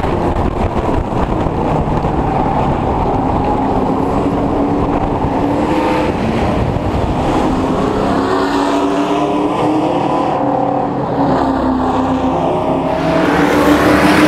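Race truck engine heard from an on-board camera, running hard at racing speed, its pitch dipping and rising with the throttle through the turns. Near the end it switches to a trackside view, and the pack of race trucks gets louder as it comes by.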